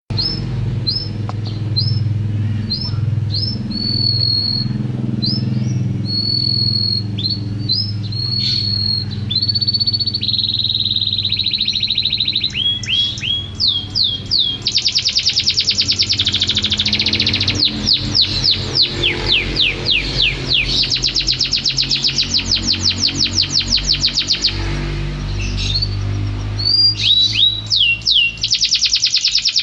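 Domestic canary singing. It starts with a run of clear, repeated whistled notes, then about halfway through breaks into long, fast trills and rolls. A steady low hum runs underneath.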